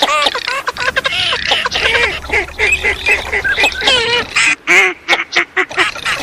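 A flock of ducks calling, teal among them: many short overlapping quacks and nasal calls, loud and dense. It is a duck-call recording of the kind hunters play at the start of the season.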